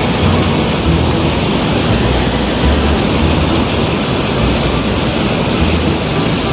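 Steady loud rushing of flowing water at a dam, with irregular low rumbles of wind buffeting the microphone.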